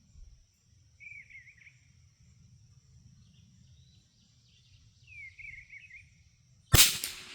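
A single shot from a Brno Model 1 .22 LR bolt-action rifle near the end, by far the loudest sound, followed by a short fading echo. Before it a bird calls twice, each a short falling warble, over a steady high insect drone.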